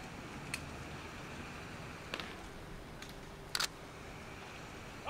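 Faint steady outdoor hiss with three sharp clicks: one about half a second in, one about two seconds in, and a louder quick double click near three and a half seconds.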